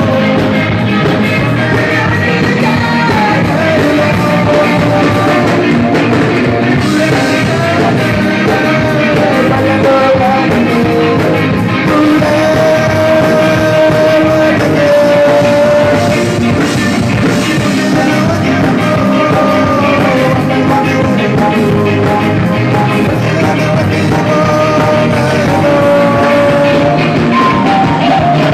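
Live band playing loud amplified music, with a man singing into a microphone and holding long notes.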